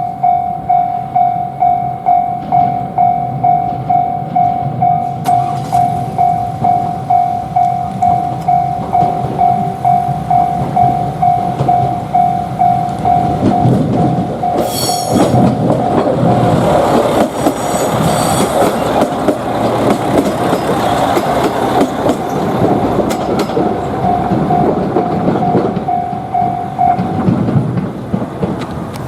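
Japanese railway level-crossing bell ringing a steady clang about twice a second, stopping near the end. From about twelve seconds in, a limited express train passes over the crossing with a rumble and clatter of wheels on the rails, and there is a brief high-pitched tone about fifteen seconds in.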